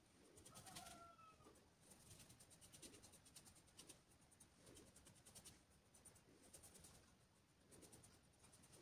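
Very faint, scratchy strokes of a paintbrush spreading acrylic paint on a canvas, repeating about once a second. A short, faint chirp sounds about a second in.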